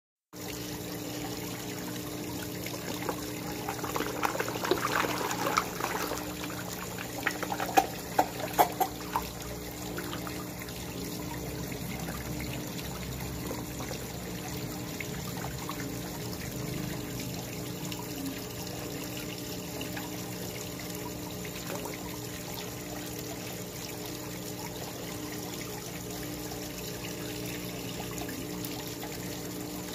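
Water steadily trickling and pouring into a koi pond, with a constant low hum underneath. A scatter of short sharp knocks and splashes comes in the first third.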